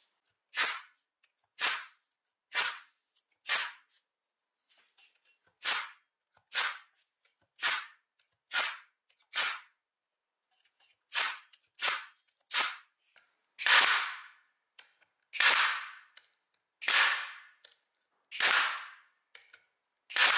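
Parkside PDT 40 G5 pneumatic air stapler firing shot after shot, about one sharp crack a second, with two short pauses; the last several shots are louder.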